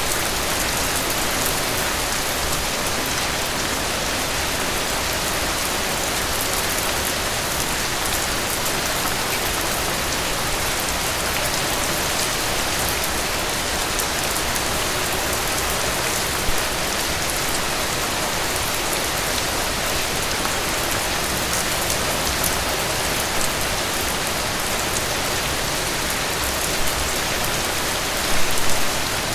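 Heavy rain falling steadily: a dense, even hiss of rain with many individual drop ticks in it. There is a brief louder spatter about 16 seconds in and another near the end.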